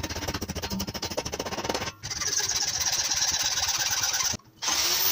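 Perforated metal strip clamped in a bench vise being cut with a saw: a dense, rapid rattle for about two seconds, then after a short break a steady grating cutting noise that stops briefly near the end.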